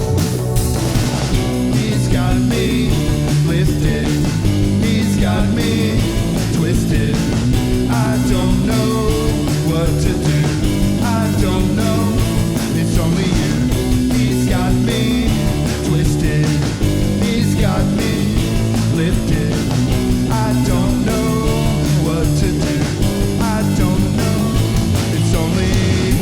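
Rock band playing loud and steady, with electric guitar, bass and drums, and a singing voice.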